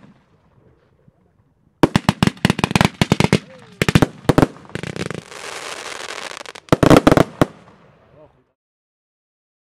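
Fireworks going off: after a quiet start, a rapid volley of sharp bangs and cracks about two seconds in, a few more near four seconds, a stretch of crackling hiss, then another tight cluster of bangs. The sound cuts off suddenly about eight seconds in.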